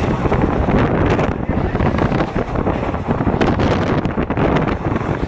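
Wind rushing over the microphone with the steady running noise of an express train moving at speed, heard from on board.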